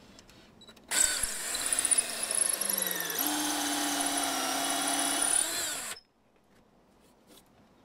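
Power drill boring a pilot hole into a door jamb: the motor starts suddenly about a second in, runs steadily with its pitch dipping and then holding, and stops about six seconds in.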